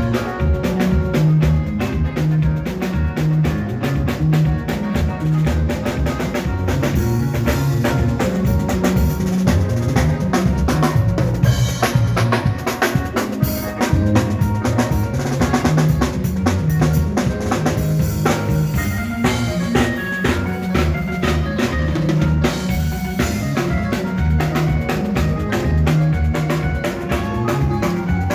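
Band playing an upbeat makossa groove: a drum kit with kick drum, snare and rimshots keeping a steady beat over a moving bass line.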